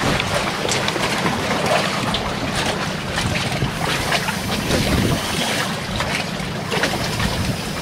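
Wind buffeting the microphone over open sea, with a steady low hum underneath.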